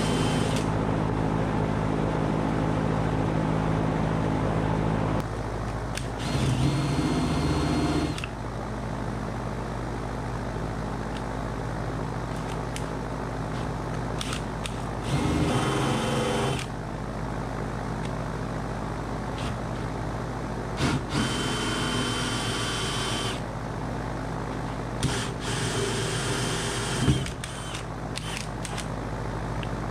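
Cordless drill running in about four short bursts, boring holes through the wall for pipes, over a steady low hum.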